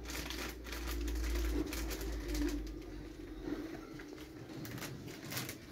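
A cardboard candy box and plastic packaging being handled, with repeated clicks and crinkles, over a low wavering tone.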